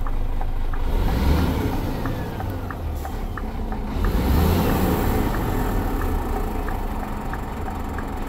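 Scania P410 truck's six-cylinder diesel heard inside the cab, pulling away and accelerating from about a second in, easing off around three seconds and pulling harder again at four. The turn-signal indicator ticks steadily about three times a second.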